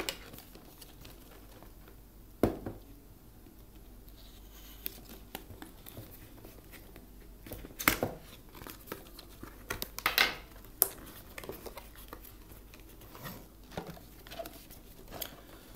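Hands handling a product box of cardboard and clear plastic: scattered taps, knocks and crinkles of the packaging, a few seconds apart, over a low steady hum.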